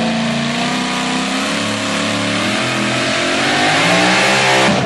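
Supercharged engine of a Ford pickup pulling truck running at full throttle under load as it pulls the sled, its pitch climbing slightly and getting louder. It cuts off abruptly near the end.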